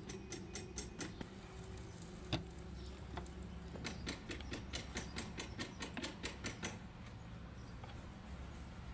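Light plastic clicks from a mechanical capillary thermostat being handled in a gloved hand: a few near the start, a single one about two seconds in, then a quick even run of about fifteen clicks at some five a second, stopping near seven seconds in. A steady low hum lies underneath.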